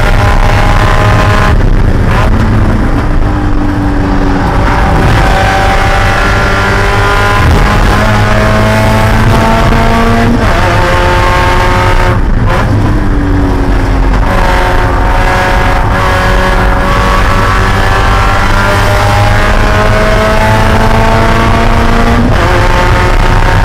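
Spec Miata's four-cylinder race engine pulling hard, heard from inside the cockpit. Its pitch climbs in long steady rises, broken off a few times for gear changes or lifts.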